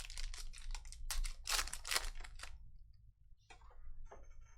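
Trading cards being handled and flipped through: a quick run of crisp clicks and papery rustles for about two and a half seconds, with a few fainter ones near the end.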